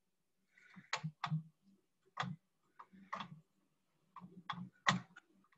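Computer mouse clicking, a handful of sharp, irregularly spaced clicks, as a shapefile rectangle is drawn and edits are saved in the mapping software.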